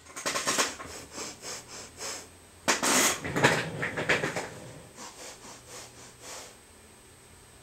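Rapid sniffing through the nose: quick runs of short sniffs, several a second, loudest about three seconds in and then fading out.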